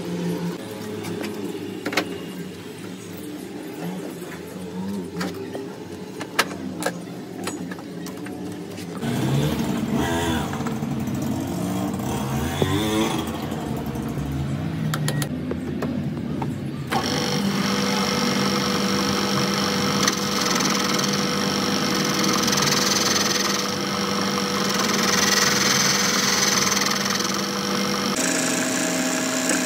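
Metal lathe work. For the first several seconds there are scattered metallic clicks and knocks as a four-jaw chuck is fitted and a piston blank clamped. Then an engine revs up and down for a while. A little past halfway the lathe starts running with a steady hum and whine, and its tool cuts the spinning piston blank near the end.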